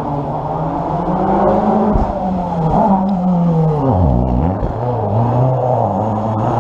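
Rally car engine driven hard up a tarmac stage, its note rising and falling through the gears. It drops sharply about four seconds in as the car slows through a hairpin, then climbs again as it accelerates away.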